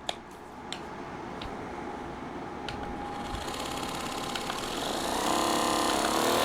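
Timtam Power Massager V2 percussion massage gun running on a V1.5 battery, with a click, then its motor hum growing steadily louder and turning into a clear whine from about five seconds in. The motor running shows that the V1.5 battery powers the V2.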